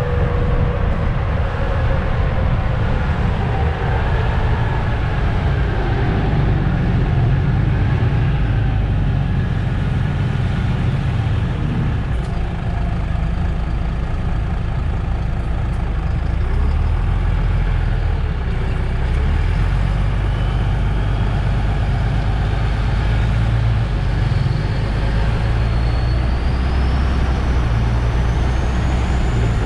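Diesel engine of a MAN Lion's City GL articulated city bus running, heard from outside the bus as a steady low rumble that shifts slightly in pitch, with a faint high whine rising near the end.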